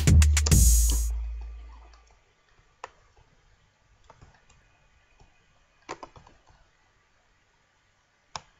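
A hip-hop beat of 808 bass, kicks, snares and hi-hats plays and stops about a second in, the deep bass fading out over the next second. After that, a few faint computer clicks.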